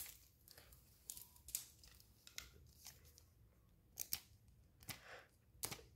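Near silence broken by a few faint plastic clicks and crinkles from a Toy Mini Brands capsule ball and its wrapping being handled, with a pair close together about four seconds in.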